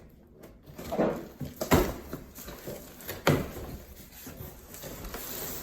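A cardboard box being opened and unpacked by hand: three sharp knocks, about a second apart, then a pause of about a second and a half, over scraping and rustling of the packaging.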